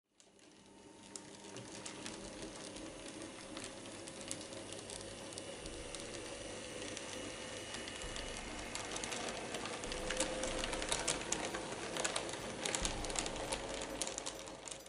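N-scale model train running along the track: a steady small-motor whirr with a constant hum, and rapid clicking from the wheels on the rails. It fades in at the start and grows louder and busier with clicks about two thirds of the way through.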